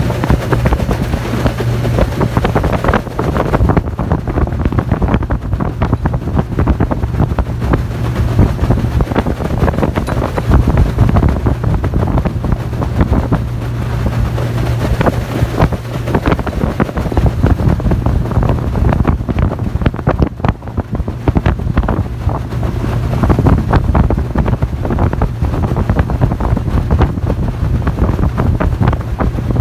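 Yamaha outboard motor running steadily at cruising speed on an aluminium boat, its low drone under heavy wind buffeting on the microphone.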